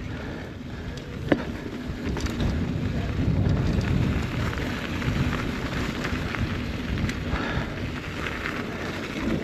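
Mountain bike riding fast down a damp dirt trail: continuous wind rumble on the microphone mixed with tyre and trail noise, and one sharp click about a second in.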